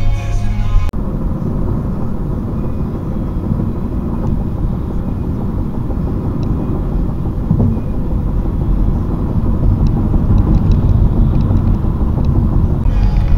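Road and engine noise inside a car's cabin at highway speed: a steady low rumble that grows a little louder in the second half.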